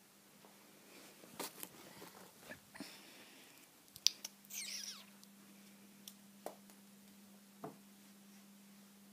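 Paper gift bag rustling and crinkling as a cat rummages inside it: scattered short clicks and rustles, with a longer, louder crinkle about four and a half seconds in. A faint steady hum runs underneath.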